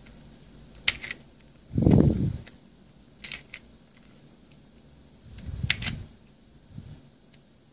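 Plastic two-layer Star Super Square twisty puzzle being turned and flipped by hand: sharp plastic clicks of the layers moving, a few at a time. The loudest sound is a low muffled thump of handling about two seconds in.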